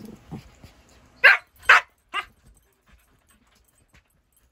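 Husky puppy giving three short, sharp barks in quick succession, about half a second apart.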